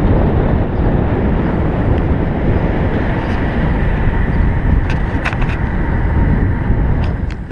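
Wind buffeting the microphone of a bike-mounted action camera while a road bicycle rolls along at speed, a loud steady rumble with tyre noise on the tarmac. A few light clicks come in the second half.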